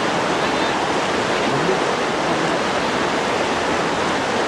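Rushing whitewater of a river, a steady rush of noise with no breaks.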